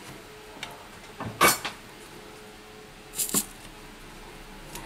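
Clicks and clatters of small hard objects handled on a workbench, over a faint steady hum: a cluster about a second and a half in is the loudest, a pair follows about three seconds in, and there are fainter single clicks.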